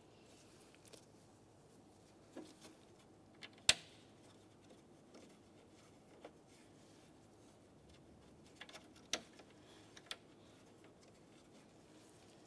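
Scattered light clicks and taps of plastic grille trim molding and small mounting screws being handled as the screws are started by hand. The sharpest click comes a little under four seconds in, and a few smaller ones follow later, over faint room tone.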